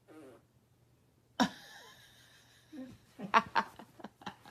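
A sudden sound about one and a half seconds in that trails off over about a second, then a person laughing in short bursts near the end.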